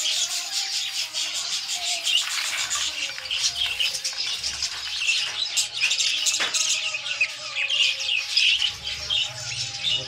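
A flock of budgerigars chattering: a dense, continuous stream of overlapping high chirps and warbles from many birds at once.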